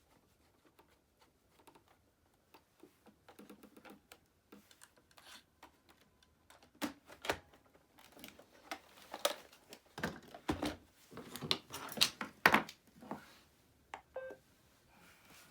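Hard plastic parts of a Roomba robot vacuum being handled: scattered light clicks, then a quick run of louder clicks and knocks about halfway through that fades out near the end.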